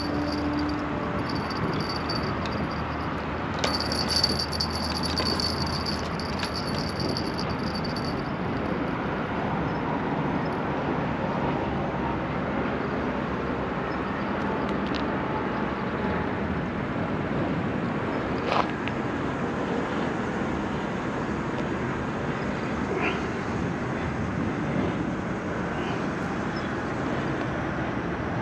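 Steady outdoor city ambience dominated by traffic noise. About four seconds in, a high-pitched sound with fine ticking joins for about four seconds, and there is a single sharp click later on.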